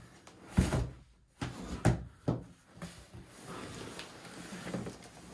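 A large cardboard box being opened and its lid and inner tray handled: four knocks and thumps of cardboard in the first couple of seconds, then softer scraping and rustling of the packaging.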